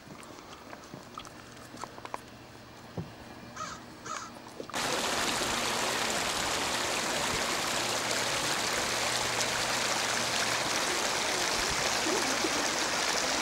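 Snowmelt creek running over rocks: a loud, steady rush of water that starts suddenly about five seconds in. Before it, a few short bird calls.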